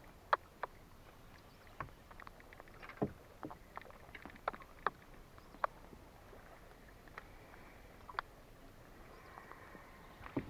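Small waves lapping against the hull of a motorboat lying still on the water: irregular light slaps and clicks over a quiet background.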